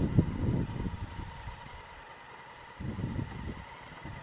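Honda Africa Twin CRF1000L's parallel-twin engine running low, near idle, as the bike creeps through stopped traffic. A low rumble, loudest in the first second, dies down to a quiet steady running sound, with a short swell about three seconds in.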